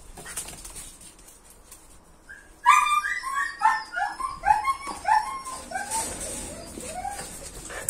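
A dog giving a rapid run of short, high whining yelps, about three a second, each falling in pitch. They start about two and a half seconds in and slowly sink lower in pitch toward the end.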